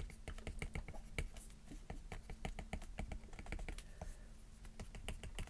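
Stylus tapping and dabbing on an iPad's glass screen as small highlights are painted in: quick, irregular light clicks, several a second, with a short lull a little before four seconds in.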